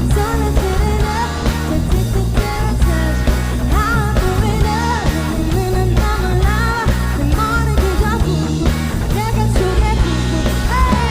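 Live pop music: a singer's melodic voice over loud backing music with bass and a steady beat.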